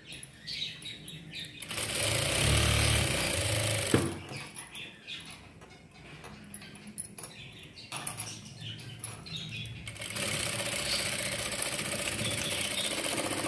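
Sewing machine running in two bursts of steady stitching, topstitching cotton fabric: one from about two seconds in to four seconds, another starting about ten seconds in and running on. Between them, quieter clicks and fabric handling.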